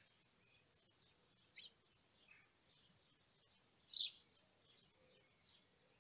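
Faint birdsong: a scatter of short, high chirps and twitters, with one louder chirp about four seconds in.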